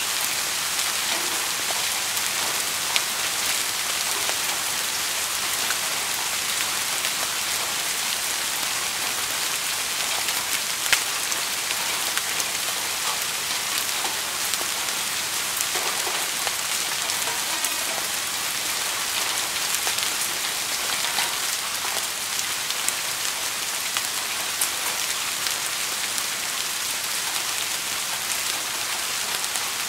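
Steady rain falling: an even hiss with many individual drops ticking through it, and a few louder drops standing out.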